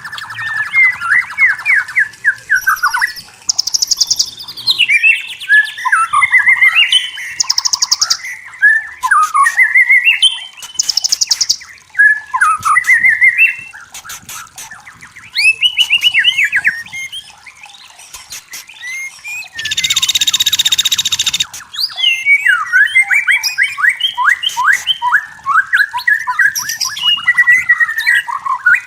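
White-rumped shama singing: a varied run of loud whistled phrases and quick sweeping notes, broken by short buzzy notes. About twenty seconds in comes one harsh, rasping note that lasts about two seconds.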